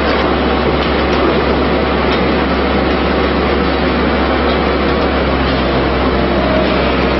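Rendering-plant machinery running loudly and steadily, with a low hum underneath and faint scattered clicks.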